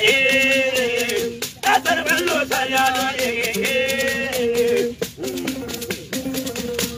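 A song: a high voice singing long, wavering held notes, pausing briefly about five seconds in, over the steady shaking of a rattle.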